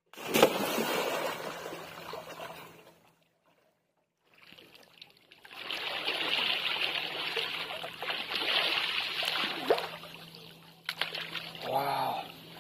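A loud splash as a person jumps feet-first into a pond, dying away over a couple of seconds; after a short gap comes several seconds of steady splashing and churning water as he swims breaststroke, pushing a floating metal basin. Near the end a brief vocal exclamation.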